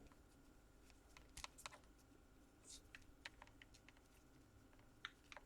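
Faint, scattered light clicks and taps from small hand tools and parts being handled: multimeter probes being set against a laptop's DC power jack and its cable for a continuity check. No continuity beep sounds.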